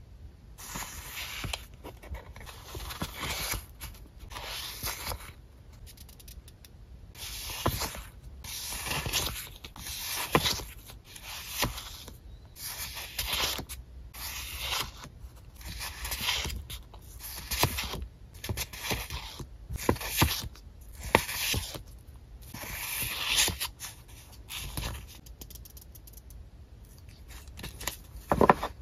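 Rustling and crinkling of thin translucent paper sticker sheets being handled and leafed through, in repeated bursts every second or two, with a sharper stroke near the end.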